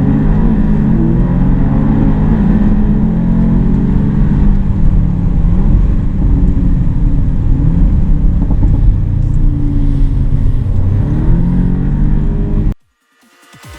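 Audi sports car engine revving hard, its pitch climbing and dropping back again and again, loud throughout. It cuts off suddenly near the end.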